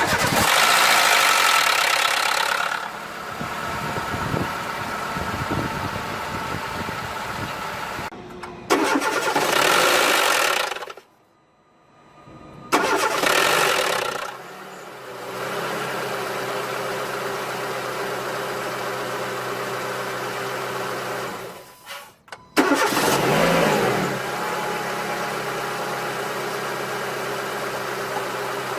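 Car engine started from cold four times, each start bringing a loud odd noise lasting a second or two that dies down into a steady idle. The noise at start-up is the fault being shown.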